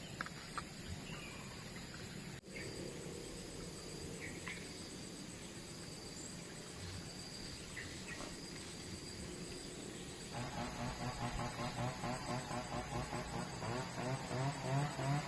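Steady high chirring of insects such as crickets. About two-thirds of the way through, a louder, rapidly pulsing pitched drone joins in.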